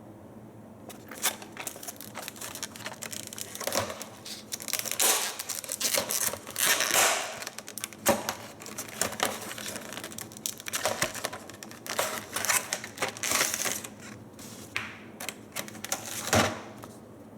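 Packaging of a Bose WB-300 wall bracket being opened and handled: a run of clicks, knocks and bursts of cardboard and plastic rustling, with two louder knocks about eight seconds in and near the end.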